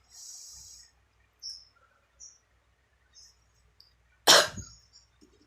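A short breathy hiss at the start, then a single forceful human cough about four seconds in. This is the effective-cough technique, a strong cough meant to bring up sputum from the airways.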